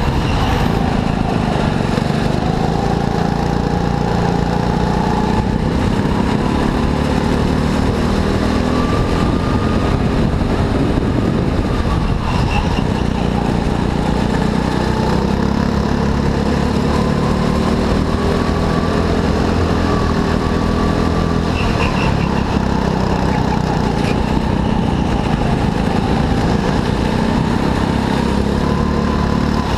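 Go-kart engine running at racing speed, its pitch climbing and dropping several times as the kart speeds up and slows.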